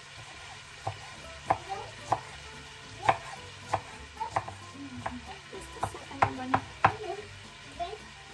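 Santoku knife chopping fresh coriander on a bamboo cutting board: a dozen or so irregular knocks of the blade on the wood. Chicken frying in a pan sizzles faintly underneath.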